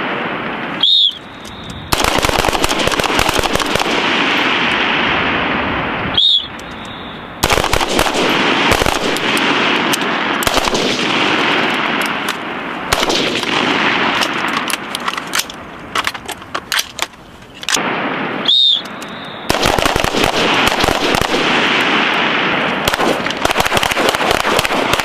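Gunfire from several shooters' carbines and pistols, rapid strings of shots overlapping into dense runs of firing. Three times the shooting pauses, a short high beep sounds, and the firing starts again about a second later.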